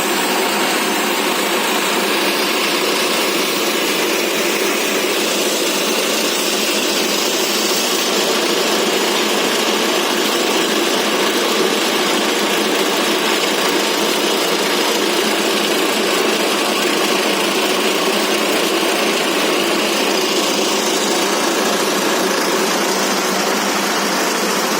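Animal-feed pellet machine running steadily under its diesel drive engine, a loud, even machine noise that holds without change.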